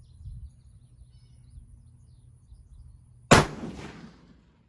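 .270 Winchester rifle (Steyr Pro Hunter) firing a single shot about three seconds in: one sharp crack with a short echoing tail that fades within about a second.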